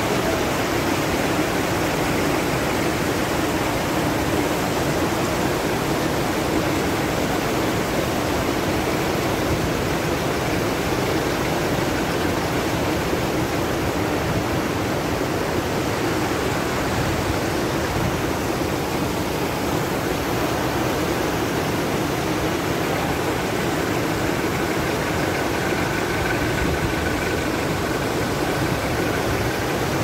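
Mountain stream rushing over boulders: a steady rush of white water that does not change.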